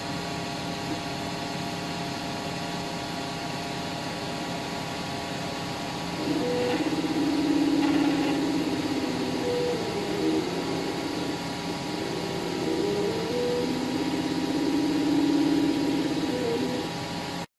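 Wanhao Duplicator 4 3D printer running: its stepper motors whine in tones that step up and down in pitch as the print head moves, over a steady fan hum.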